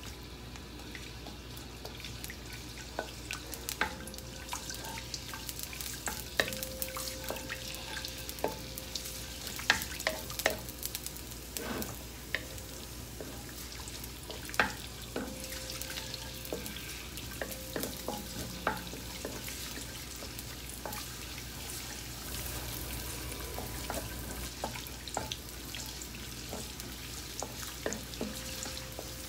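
Julienned ginger frying in hot oil in a wok with a soft steady sizzle, while a wooden spatula stirs it, scraping and tapping irregularly against the pan.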